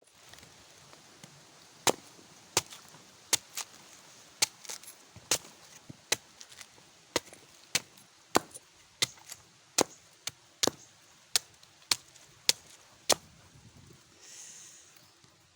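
Young green coconut being hacked open with a machete: about twenty sharp chopping strikes, a little irregular, roughly one every half second to second. A short soft hiss follows near the end.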